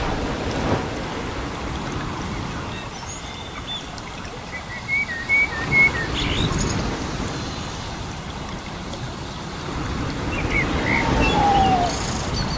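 Small birds chirping over a steady hiss of running water: a run of short chirps about halfway through and a falling call near the end.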